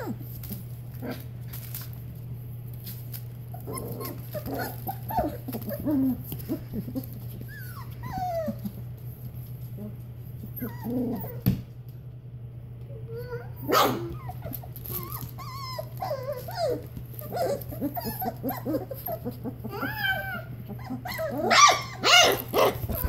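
Three-week-old goldendoodle puppies whining and yipping as they play, in scattered short calls that slide up and down in pitch. The calls come thickest and loudest near the end.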